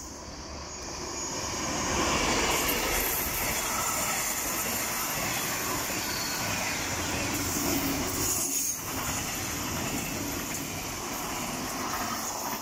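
DB Schenker MZ-class diesel locomotive hauling container flat wagons, passing close by. The sound swells about two seconds in as the locomotive goes past, then settles into a steady rumble and clatter of the wagons' wheels on the rails.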